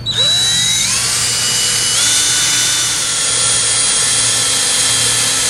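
Cordless power drill drilling a rivet hole through a plastic brace shell: the motor whine rises in pitch as it spins up over the first second or two, then runs steadily at full speed.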